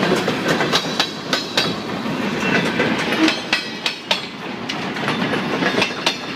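Canadian Pacific freight train cars rolling past, steel wheels clacking over the rail joints in a quick, irregular run of sharp clicks over a steady rumble.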